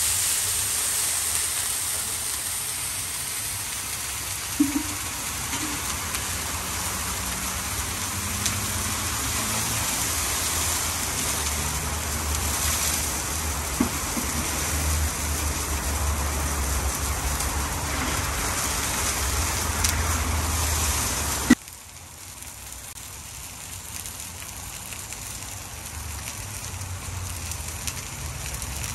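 Water poured by the ladleful into a hot cast-iron kazan of searing beef, hissing and sizzling steadily. About two-thirds of the way in it cuts off suddenly, leaving a quieter steady hiss.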